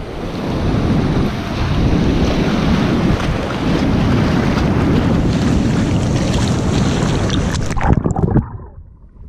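Sea surf washing over rocks, with wind on the microphone. Near the end the camera goes under the water: a few splashes, then the sound turns muffled and drops away.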